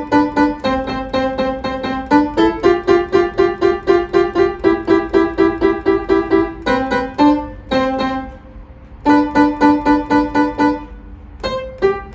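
Piano played with fast, evenly repeated notes, breaking off briefly about 8 seconds in and again near the end.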